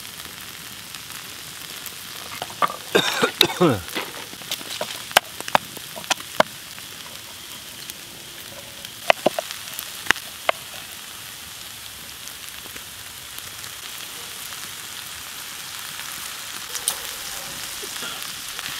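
Diced red onion frying in a cast-iron skillet over campfire coals: a steady high sizzling hiss that slowly grows a little louder. Scattered sharp clicks and taps sound over it, with a short cluster of squeaky tones about three seconds in.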